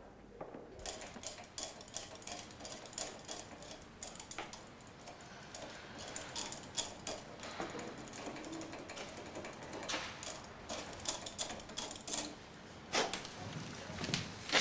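Small hand tools clicking and tapping irregularly at a workbench, beginning about a second in, with a few louder knocks near the end.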